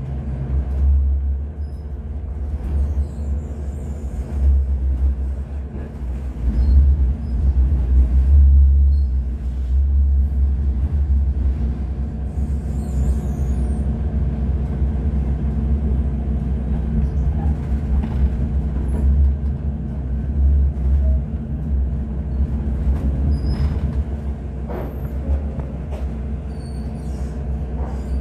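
Sheffield Supertram tram running along its track, heard from inside the car: a steady low rumble with a constant motor hum. It grows louder about seven to nine seconds in.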